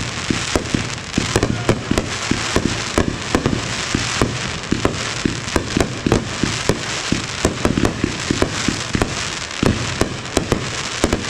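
Fireworks going off: a dense, continuous run of sharp pops and bangs, several each second, over a crackling hiss.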